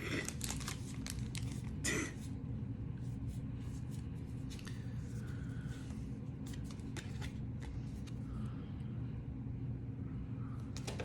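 Soft rustling and light clicks of Pokémon trading cards and foil booster-pack wrappers being handled and flipped through, busiest in the first couple of seconds, over a steady low background hum.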